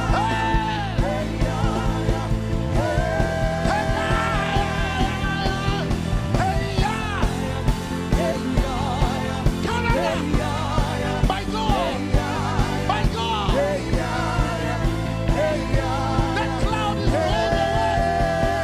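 Gospel worship music: a band with a steady beat under a voice singing long held notes with vibrato.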